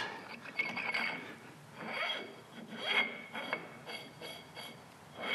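Metal gear shaft sliding and turning by hand in a machined bushing bore, a few short rubs of metal on metal with a faint ringing. This is a test of a close running fit with just the slightest wiggle.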